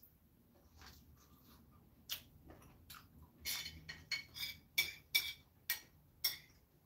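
A metal fork clicking and scraping against a ceramic plate, about ten light clinks, some with a short ring, from about two seconds in.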